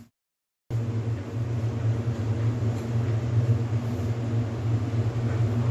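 The sound drops out to silence for under a second, then a steady low hum with a light haze of noise runs on unchanged.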